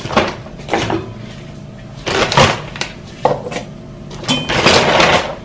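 Short bursts of clatter and rustling from hair products and other things being picked up and handled close to the microphone, about six times, the longest near the end.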